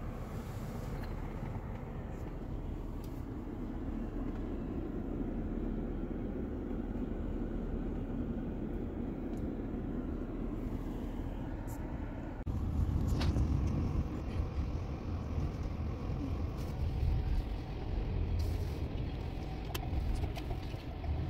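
Road noise heard inside a car's cabin: a steady low rumble of engine and tyres, with the rumble becoming stronger and louder about twelve seconds in.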